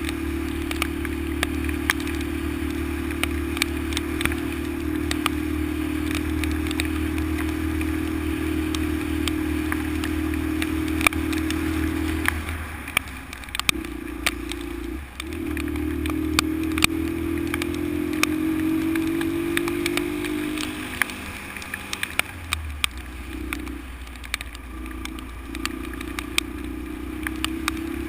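Honda XL125's single-cylinder four-stroke engine running under load on a rough road, with sharp rattles and clicks all through. The engine drops off briefly a little before the middle, picks back up and rises, then eases again, as the throttle is closed and reopened.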